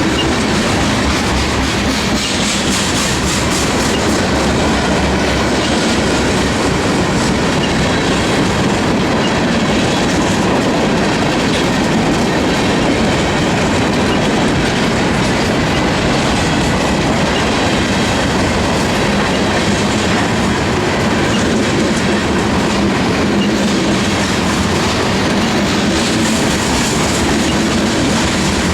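CSX freight train's cars rolling steadily past, wheels clicking over the rail joints in a continuous loud rumble.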